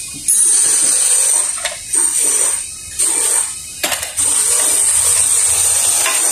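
Pressurised spray hissing in bursts, five in all of half a second to two seconds each, while the rear brake hub of a Honda TMX 125 is cleaned, with a sharp click just before the last long burst.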